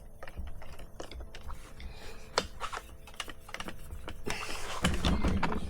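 Small irregular clicks and taps of metal parts being handled as a through-bolt is guided into a trolling-motor housing and started.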